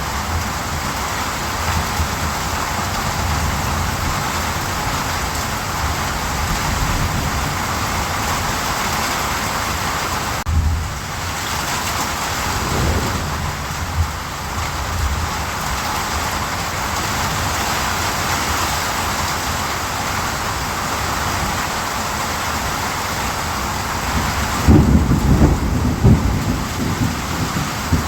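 Steady rain falling, with short low rumbles of thunder about ten and thirteen seconds in and a louder, longer rumble near the end.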